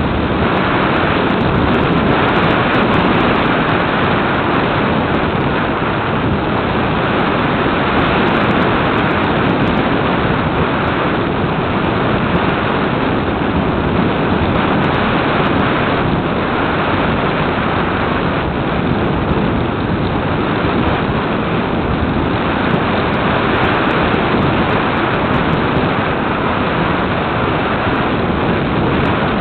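Steady, loud rush of airflow over an onboard camera's microphone on an RC glider in flight, swelling and easing a little.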